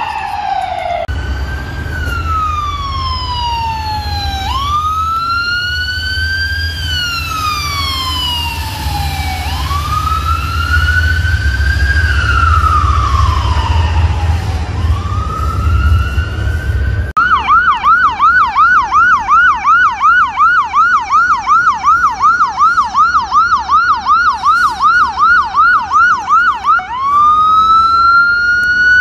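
Medic One ambulance sirens, in turn. First comes a slow electronic wail rising and falling every four to five seconds over a low rumble. After a cut about halfway through, a fast yelp follows at about three to four cycles a second, and it switches back to a rising wail near the end.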